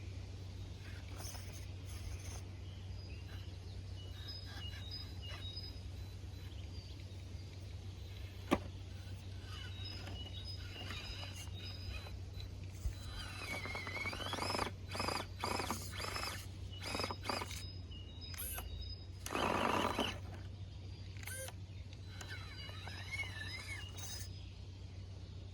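Outdoor woodland ambience with birds chirping and calling in short rising and falling notes over a steady low hum, and a louder rustling burst about three-quarters of the way through.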